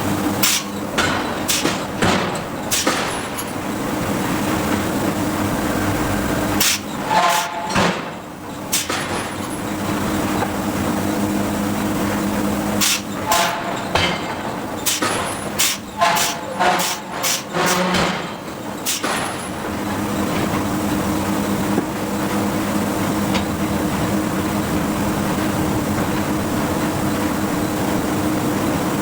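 Hydraulic forging hammer striking hot steel in three runs of heavy blows, some with a short metallic ring, over a steady hum of machinery. The blows stop about two-thirds of the way through, leaving only the hum.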